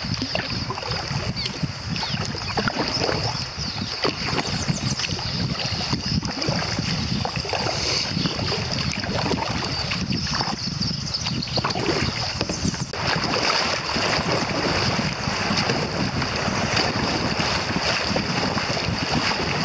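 Water lapping and splashing at a kayak's hull as it is paddled downriver, with wind on the microphone and a steady high buzz throughout. About two-thirds of the way through, the water turns to a steadier rush as the kayak runs into a riffle.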